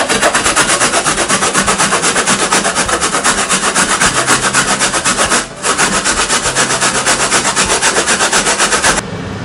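Daikon radish being grated on a plastic grater box: quick, even rasping strokes about five a second, with a short break about halfway through, stopping just before the end.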